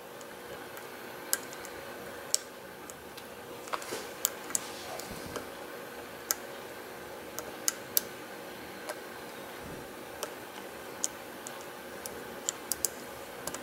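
Lock pick working the pins of an old five-pin Eagle padlock during single-pin picking: faint, irregular small clicks as the pick lifts the standard pins and they set.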